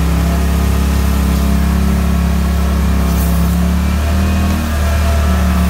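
Pro-Drive 36 hp mud motor running steadily under way. Its note drops briefly a little before the end and then picks back up.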